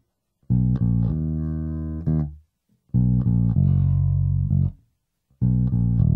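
Background music: a bass guitar playing three short phrases of sustained notes, each cut off into a brief dead silence.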